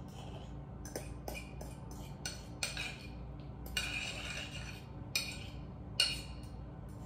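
A utensil scraping and clinking against the sides of a bowl in a series of separate strokes as thick deviled-egg filling of mashed yolks and Greek yogurt is scraped out into another bowl. The sharpest clink comes near the end.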